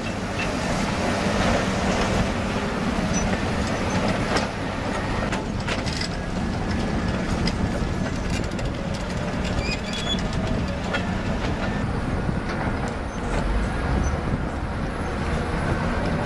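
Komatsu D275 bulldozer at work: its diesel engine runs steadily under load while its steel crawler tracks clank, with many sharp knocks scattered throughout.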